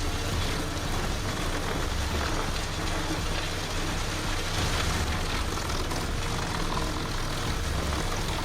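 Heavy wood-processing machine at work: a steady engine drone under continuous noisy shredding of wood.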